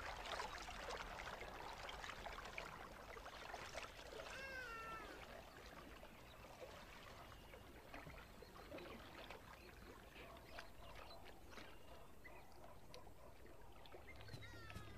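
Faint splashing and sloshing of water as an animal swims through it, with a short, high, falling animal call about four seconds in. A low steady hum comes in near the end.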